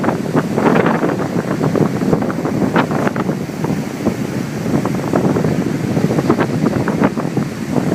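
Stiff northeast wind buffeting a phone microphone in loud, rough gusts, with ocean surf washing beneath it.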